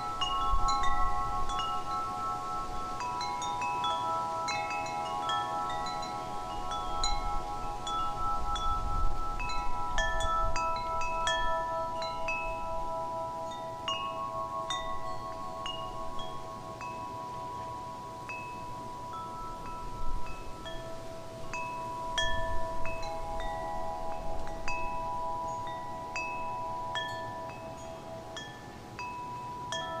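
Wind chimes ringing throughout: many light, scattered struck notes high up, over several long ringing lower tones, with a low wind rumble underneath.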